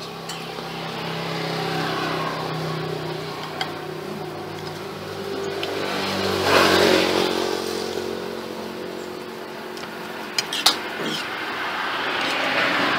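Motor vehicles passing one after another, the engine noise swelling and fading, loudest about six and a half seconds in and again near the end. Two sharp clinks of cutlery on a plate a little past ten seconds.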